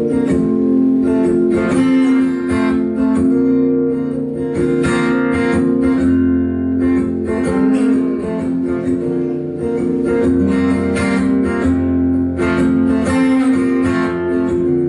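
Acoustic guitar strummed in a steady rhythm of sustained chords, an instrumental passage of a live song without vocals.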